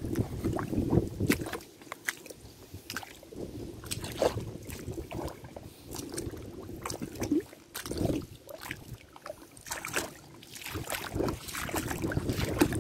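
Irregular squelching, sloshing and knocking of someone moving through mud and shallow water among mangrove roots, with handling knocks on the microphone.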